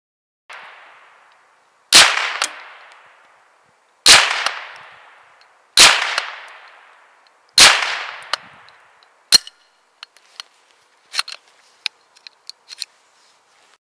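Gevarm E1 open-bolt semi-automatic .22 Long Rifle rifle firing four shots about two seconds apart, each report ringing out with a long fading echo and a fainter sharp crack about half a second after it. A faint report comes about half a second in, and after the shots a scatter of light clicks as the rifle is handled.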